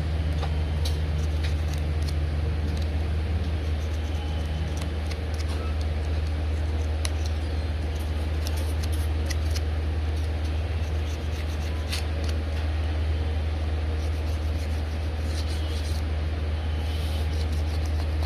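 A steady low hum, with faint small clicks and taps scattered over it.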